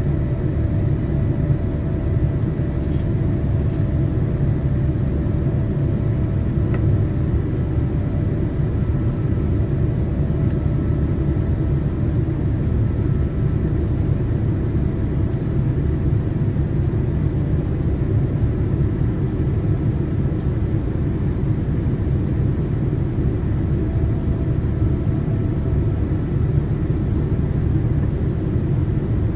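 Steady low rumble of a Boeing 787-8 airliner, with a faint steady hum above it and no rise or fall in level.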